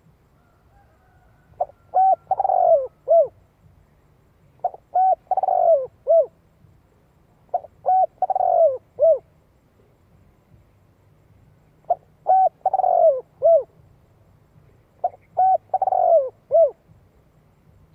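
Spotted dove (cu gáy) cooing: five phrases about three seconds apart, each a few short notes, a longer falling coo and a short closing note. It is the repeated urging call that decoy doves use to draw in wild males.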